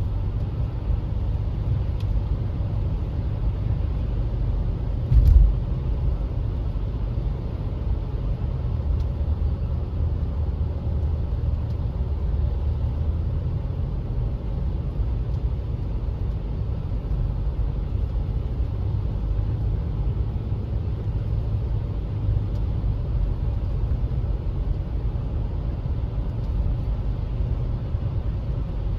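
Car driving: a steady low rumble of road and engine noise, with one short thump about five seconds in.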